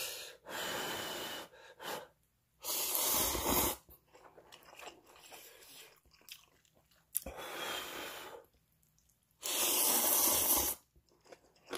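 A person eating hot ramen noodles: four long, airy slurps of about a second each, with quieter chewing between them.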